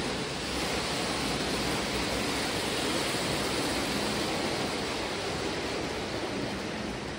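Lionel O-gauge model trains running on three-rail track: a steady rolling rumble and hiss of wheels on the rails. It grows a little louder as a green passenger train passes close by.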